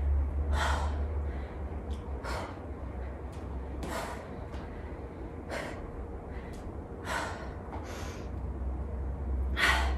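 A woman breathing heavily from exertion, with sharp, forceful exhales about every one and a half to two seconds.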